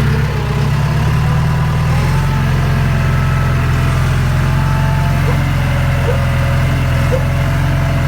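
Tractor engine running steadily, a loud, even low hum with a faint wavering whine above it.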